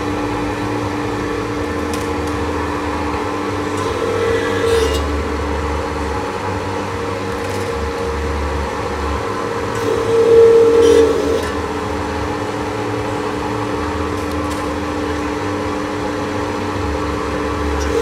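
680B enamel wire stripping machine running steadily, its electric motor and belt-driven stripping head humming. It grows louder briefly about four seconds in and again, most strongly, about ten seconds in, as enamelled wire is pushed into the stripping head.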